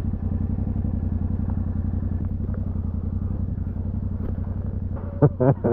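Yamaha Ténéré 700's parallel-twin engine running steadily, a low even drone. A voice starts near the end.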